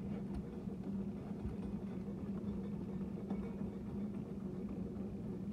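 Electric drain-cleaning machine running with a steady hum, its motor spinning a steel snake cable inside a sewer drain line.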